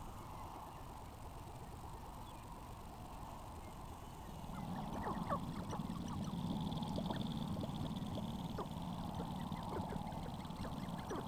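Sharp-tailed grouse displaying on a lek. About four seconds in, a chorus of short clucking and cackling calls starts over a low, rapid rattling, and both keep going.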